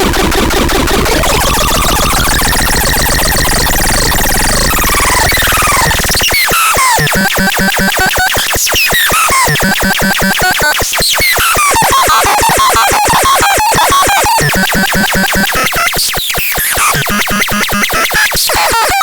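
Harsh electronic noise music. At first there are gliding, whistling tones over a low drone. About six seconds in it changes to fast, stuttering clicks with short low pulses and quick pitch sweeps.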